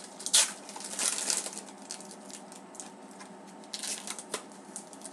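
Trading cards being handled and slid one over another as a pack is flipped through: short papery scrapes and rustles, with a sharp click about half a second in.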